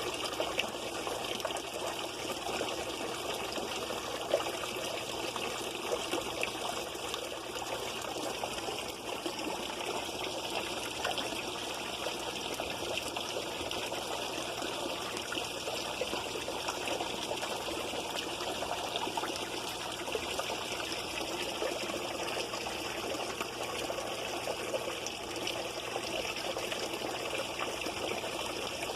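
Steady trickle of running water into a fish pond, with one short sharp knock about four seconds in.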